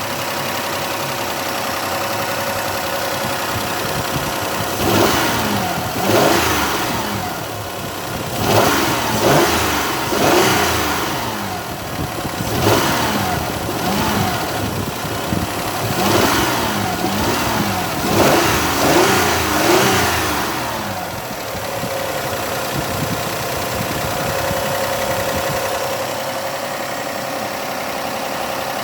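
Car engine idling, then revved in a series of quick throttle blips through the middle, then settling back to idle. It runs evenly with no valve tapping, the hydraulic lifter knock now gone by the owner's account.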